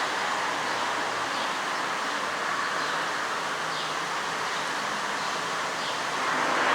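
Steady rushing noise of a thunderstorm's heavy rain and gusting wind, swelling slightly near the end, with a few faint high chirps.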